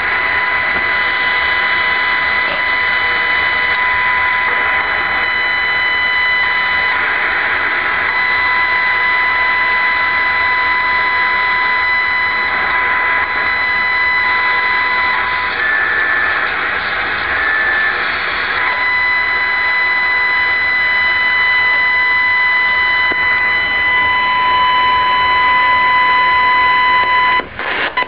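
Sangean ATS-909X portable radio on the medium-wave band giving out static hiss with a steady high-pitched whine on top: interference from inside the radio, picked up by its internal ferrite antenna, which the owner suspects comes from the display circuitry. The whine briefly changes in the middle, and near the end the sound drops out several times in quick succession.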